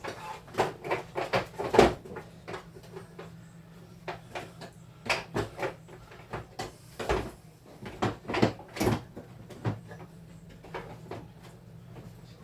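Irregular clicks and knocks of hard plastic parts being handled on an electronic keyboard during repair. They come in two clusters, with the loudest knock about two seconds in and a second run between about five and nine seconds.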